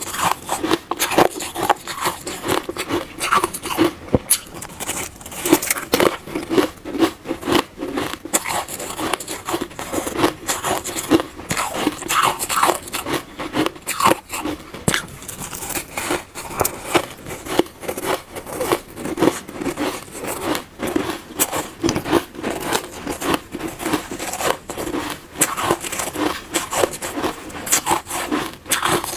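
Soft shaved ice crunching, squeezed by hand into balls and bitten: a dense, continuous crackle of many small sharp crunches.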